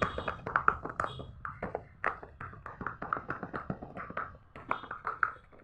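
Silicone pop-it fidget toy bubbles being pressed, a quick, uneven run of small pops, several a second.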